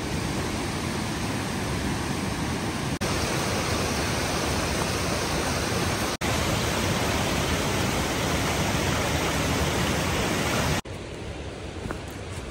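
Rushing water of a stream pouring down over rock ledges, a steady hiss. The sound breaks off briefly twice and is quieter near the end.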